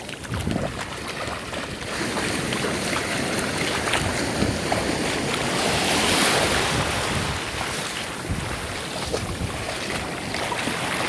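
Sea water sloshing and splashing around a swimmer, with wind buffeting the microphone. The rush of noise swells to its loudest about six seconds in.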